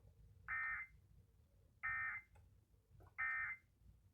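Emergency Alert System end-of-message data bursts: three short, identical electronic bursts about a second apart, the digital code that marks the end of the alert.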